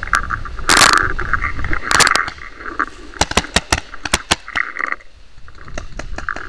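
Dry straw of a hay bale scraping and rustling against the microphone in two loud bursts, followed by a quick run of sharp cracks.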